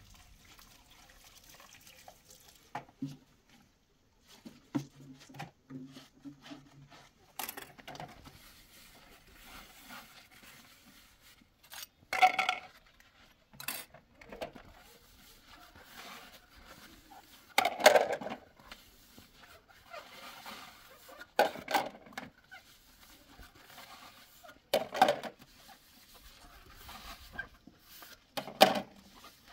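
Intermittent knocks and clatters at a low level, with about five louder sharp clatters spread through the second half, a few seconds apart.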